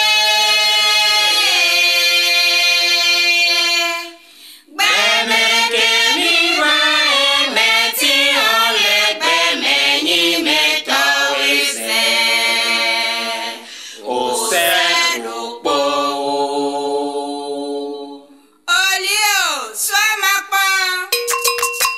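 A cappella singing: a woman's voice with other voices in harmony, in long held notes, breaking off briefly twice.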